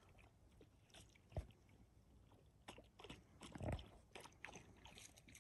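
Near silence broken by faint, scattered clicks and crackles and a few soft knocks, the sharpest about a second and a half in and a small cluster a little past the middle.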